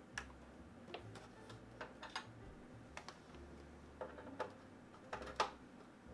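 Scattered light clicks and knocks, about a dozen at uneven intervals, the loudest about five seconds in, from small hard objects being handled, such as a cable and its connectors being set up.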